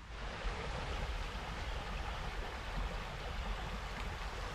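Steady rush of a flowing creek, with a low rumble underneath.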